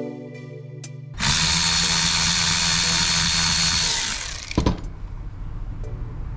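A power drill runs steadily for about three seconds and then winds down, followed by a sharp click, as the bolts that hold the balancer's damper to its hub are run in.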